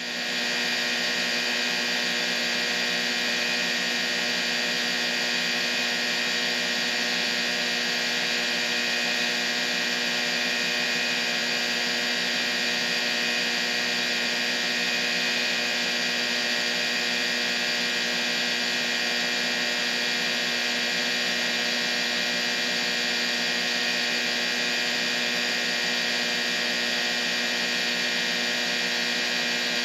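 Steady white-noise masking sound: an even hiss with a low hum and several steady tones running through it, unchanging throughout, fading in over the first half second.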